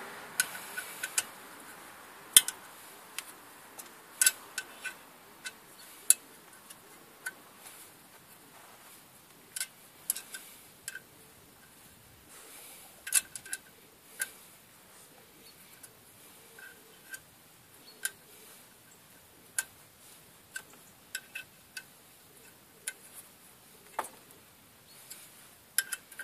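Irregular sharp metallic clicks and taps, spread unevenly with short pauses between them, from a hex key working the bolts of a clutch pressure plate as they are screwed down and tightened against the flywheel.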